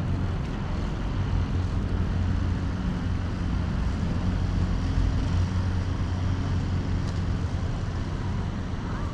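Steady low rumble with a constant deep hum, like road traffic or a running vehicle.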